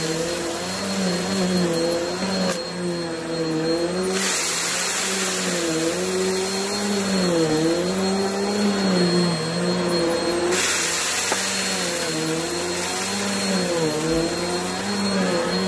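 Upright vacuum cleaner running on carpet, pushed back and forth. Its motor hum dips and rises in pitch with each stroke, and the rushing air hiss grows louder and softer a few times.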